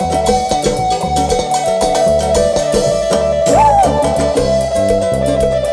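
A live band playing an instrumental passage without singing: a steady drum beat under a held melody line. About halfway through, the melody slides up and back down.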